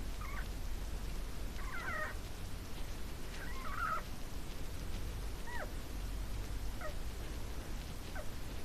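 A hamster squeaking in her sleep while dreaming: about six short squeaks a second or two apart. Some warble and some slide down in pitch, over a steady low hum and hiss.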